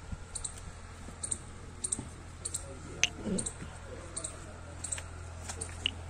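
Scattered sharp, high clicks, a few a second, over a low steady hum, with a brief faint voice about three seconds in.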